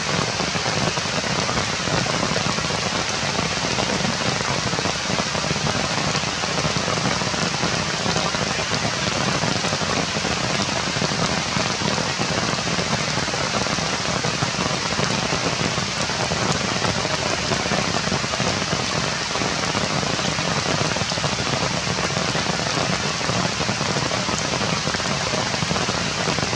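Steady rain falling on forest foliage, an even, unbroken hiss.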